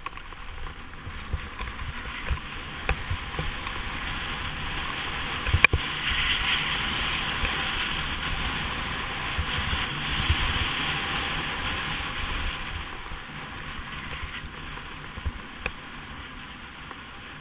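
Sit ski sliding and scraping over groomed snow on a downhill run: a steady hiss with wind rumble on the camera microphone and a few light ticks. A sharp knock comes about six seconds in, and the hiss is louder for several seconds after it before easing.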